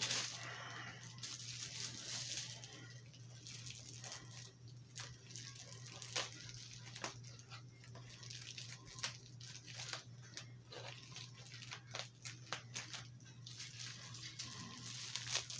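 Faint scattered rustles and small clicks of a mailed package being handled and opened by hand, over a steady low hum.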